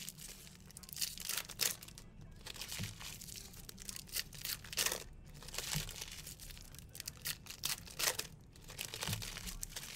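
Trading-card pack wrappers being torn open and crinkled: irregular crackles and rips.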